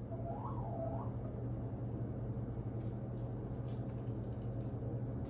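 A hen's soft call that rises and falls in pitch about half a second in, over a steady low hum, followed a few seconds later by several faint ticks as she pecks among playing cards on a tile floor.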